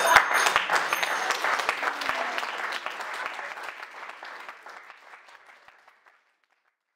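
Audience applauding, a dense patter of hand claps that fades out over several seconds to silence.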